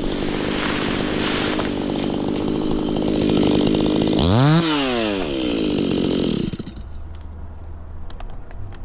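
Stihl chainsaw running hard at steady high revs, its pitch sweeping sharply up and back down about four seconds in as the throttle is worked, then dropping away about six and a half seconds in.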